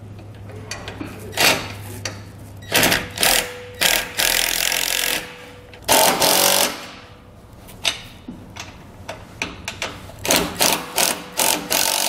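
Cordless drill with a 15 mm socket running in short spurts as it tightens the nuts on a trailer jack's mounting bolts. The longest run lasts about a second near the middle, and a quick string of brief trigger pulses comes near the end, with clinks of the socket and wrench on the bolts.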